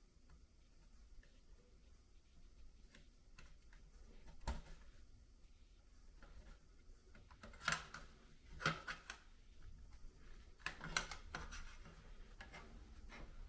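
Faint handling of SATA cable connectors and a 2.5-inch SSD inside a desktop PC case: a single click about four seconds in, then several sharper clicks and scraping rustles in the second half.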